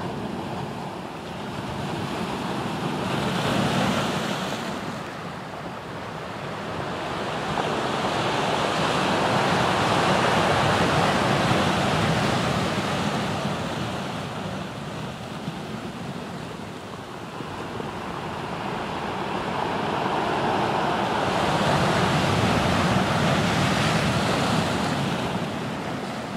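Ocean surf breaking on a rocky shore: a steady rush that swells and ebbs in slow surges several seconds apart.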